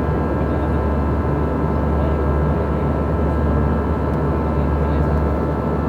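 Steady in-flight interior drone of an Airbus A320: engine and airflow noise, deep and constant, with a few faint steady tones above it.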